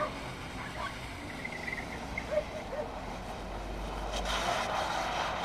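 Audi Q7 SUV heard from a distance as it drives in circles on snow, its engine and tyres a steady hiss that grows louder near the end, over a low rumble of wind on the microphone.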